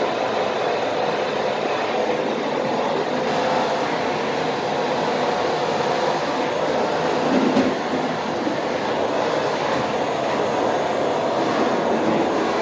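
Vacuum cleaner running steadily while a floor is being vacuumed, with a brief louder surge about seven seconds in.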